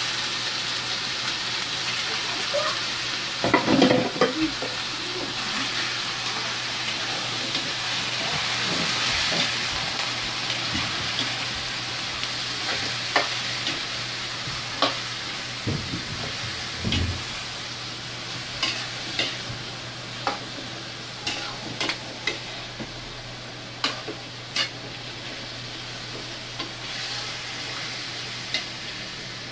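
Chicken pieces frying in hot oil in a metal pan: a steady sizzle, with a louder burst of crackling about four seconds in. A metal spatula clinks and scrapes against the pan as the pieces are turned, the clinks coming more often in the second half.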